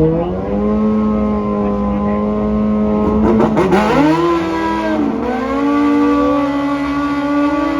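Car engine under acceleration: its pitch climbs and holds, drops sharply about three and a half seconds in at a gear change, then climbs again.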